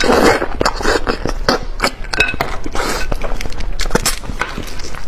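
Close-miked eating of a fatty fish head: wet chewing and slurping in short bursts, with many sharp mouth clicks and smacks.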